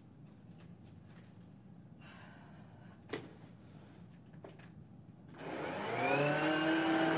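Stick vacuum cleaner switched on about five seconds in, its motor whine rising in pitch as it spins up and then running steadily. Before that, a single sharp click in a quiet room.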